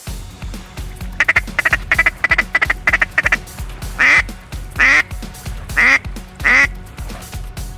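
Duck call blown by a hunter: a quick run of about seven short quacks, then four longer, louder drawn-out quacks, over background music with a steady beat.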